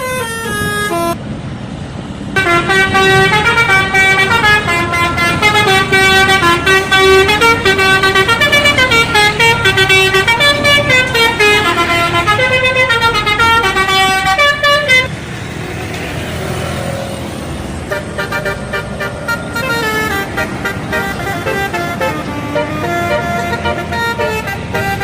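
Indonesian bus 'telolet' musical air horn playing a fast tune of stepping notes for about twelve seconds, starting a couple of seconds in. After that it drops to quieter bus engine and traffic noise with fainter horn notes.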